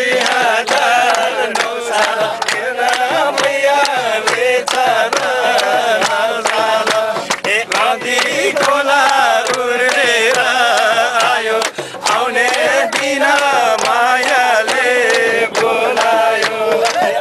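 A group of men singing a Nepali song together with loud, irregular handclapping.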